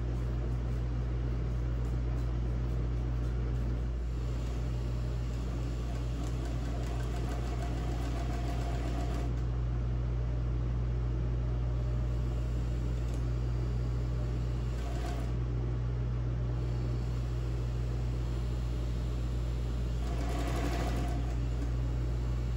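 Industrial sewing machine running steadily as it stitches fabric, with a constant low motor hum.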